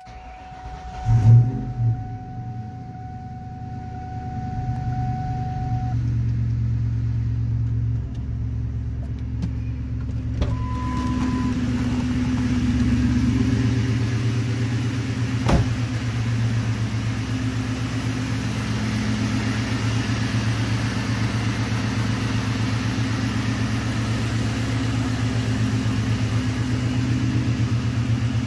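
1999 Ford Mustang GT's 4.6-litre V8 starting just after a second in and then idling steadily. The engine is freshly rebuilt with a new crank, pistons and bearings, and runs with no rod knock.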